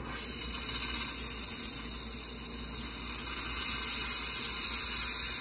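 Oxy-fuel torch hissing steadily while heating a carbide-tipped saw blade to braze in new carbide tips. About a quarter second in the hiss jumps much louder as the torch is turned up, its flame going from yellow to blue.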